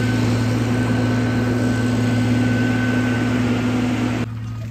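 Vehicle engine running with a steady low hum under a broad hiss. About four seconds in, the hiss drops away suddenly while the hum carries on.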